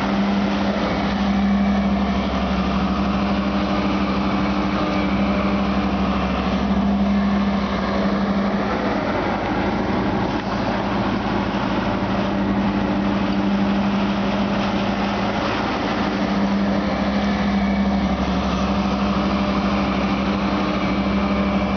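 New Holland Kobelco E175C crawler excavator's diesel engine running steadily while the machine digs, its hum swelling a few times as it takes load.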